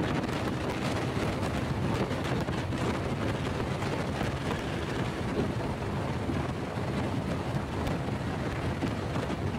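Wind rushing over the microphone of a Honda Pop 100 motorcycle riding at steady speed, with the small engine running underneath.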